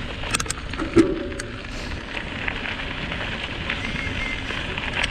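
Mountain bike rolling along a dirt trail: a steady rushing noise with tyre crackle and small rattles, and one sharp knock about a second in.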